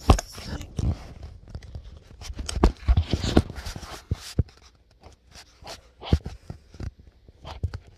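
Cardboard mailing box handled and pried at close to the microphone: irregular knocks, scrapes and rustles, busier in the first half.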